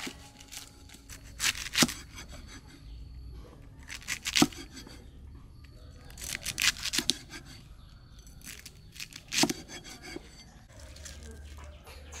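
Cleaver cutting through a head of cabbage on a wooden chopping block: short groups of cuts and knocks of the blade on the wood, four groups a few seconds apart.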